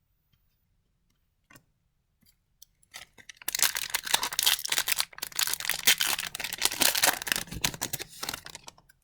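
Foil wrapper of a hockey card pack being torn open and crinkled: a dense crackling rustle that starts a few seconds in and lasts about five seconds.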